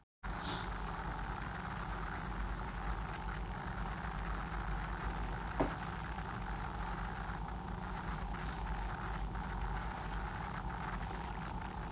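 Steady low hum of background room noise, with a single short click about five and a half seconds in.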